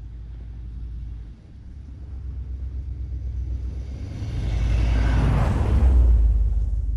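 Cadillac DeVille's Northstar V8 with a Thrush exhaust and resonator delete, running with a low rumble as the car drives by on a snowy road. It grows louder as the car approaches and is loudest as it passes close, about five to six seconds in, with a hiss of tyres on packed snow, then fades.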